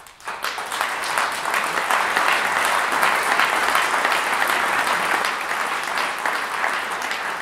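Audience of a few hundred people applauding, many hands clapping at once. It starts suddenly and holds steady, easing off slightly near the end.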